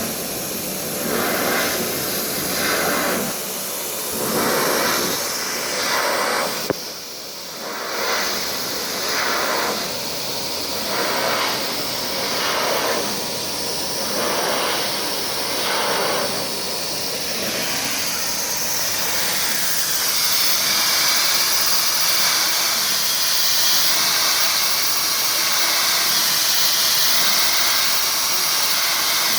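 CNC machine cutting aluminium door and window frame profiles. The cutting noise swells and falls about once a second, with a sharp click about seven seconds in, then gives way to a steady high hiss.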